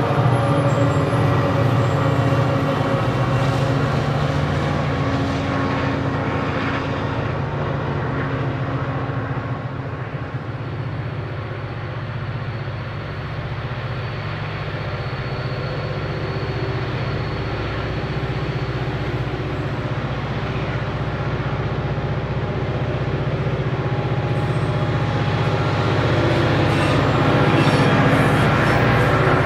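Several diesel locomotives working hard up a steep grade, their engines running as a steady low drone under heavy load. The sound eases off around the middle, then builds again as another group of locomotives approaches, loudest near the end.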